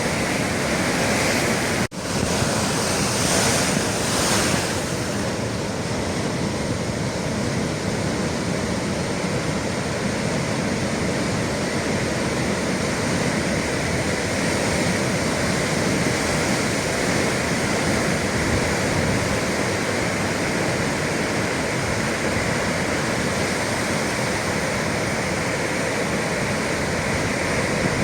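Atlantic sea waves breaking and rushing steadily, with some wind on the microphone. The sound cuts out very briefly about two seconds in.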